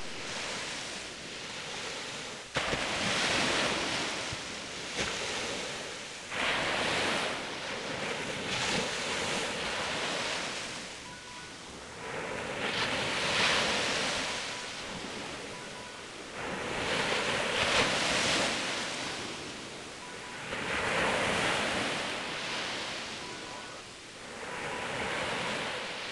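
Small sea waves breaking on a beach and washing up the shore, surging and fading in a repeating rhythm about every four seconds.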